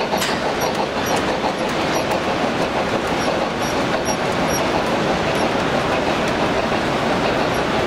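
Model steam locomotive and a long train of open wagons running along the layout track, with small repeated clicks of the wheels over the rail joints, over a steady hall hubbub.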